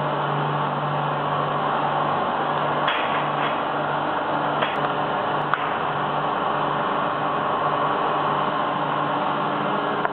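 A machine running with a steady noisy hum. About two seconds in, its low tone starts to throb on and off roughly twice a second, with a few light knocks over it.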